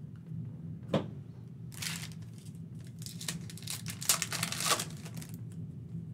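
Foil wrapper of a basketball trading-card pack being torn open and crinkled by hand, the loudest crinkling in the middle and later part. A sharp tap about a second in.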